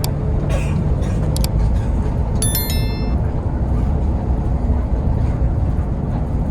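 Steady low rumble of a running bus, with a few short clicks and a brief cluster of faint high chirping tones about two and a half seconds in.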